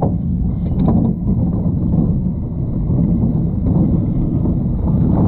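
Gerstlauer bobsled roller coaster car running at speed along its steel tube track, a steady rumble of wheels with wind buffeting the microphone.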